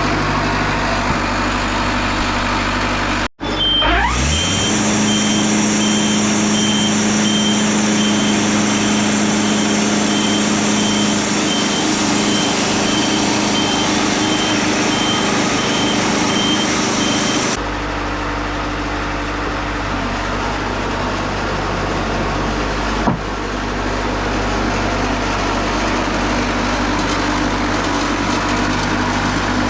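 Wood-Mizer LT40 Super Hydraulic bandsaw mill's engine running steadily at a low idle. About three seconds in, after an abrupt break, a machine spins up to a steady hum with a regular electronic beeping like a reversing alarm. Just past the middle it cuts back to the engine's low running.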